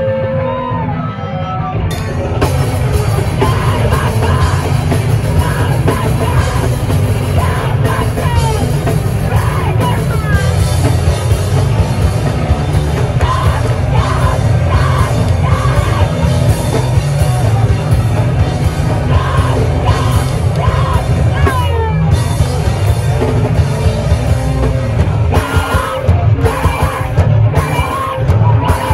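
A rock band playing loud and live, with yelled vocals over distorted guitars and drums. The full band comes in about two seconds in.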